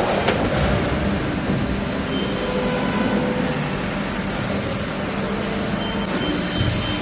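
Plastic injection moulding machine running through its cycle on a multi-cavity bottle-cap mould: a steady mechanical hum and rush, with a short thump near the end.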